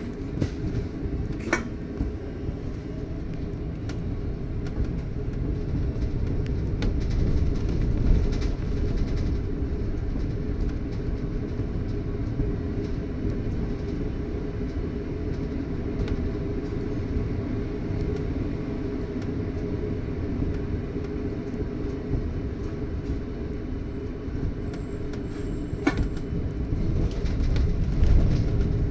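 Steady low rumble of engine and road noise inside a London bus under way, with the odd sharp rattle, about a second and a half in and again near the end.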